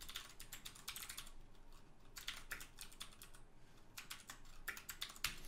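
Typing on a computer keyboard: faint, quick runs of key clicks with short pauses between them.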